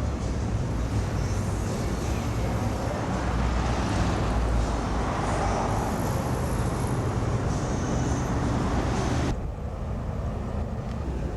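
Steady road and traffic noise with a low rumble. About nine seconds in the hiss above it cuts off abruptly and the sound becomes duller and a little quieter.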